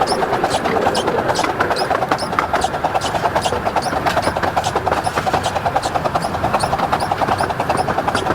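Miniature railway train running at speed, a steady, fast, rhythmic beat with a regular sharp tick about three times a second.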